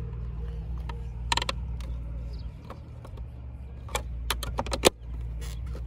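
Plastic clicks and knocks as a carbon-look M3-style mirror cap is pressed onto a BMW F30's door-mirror housing and its clips snap in. A pair of clicks comes about a second in, then a quick cluster near the end, the last the loudest, all over a steady low rumble.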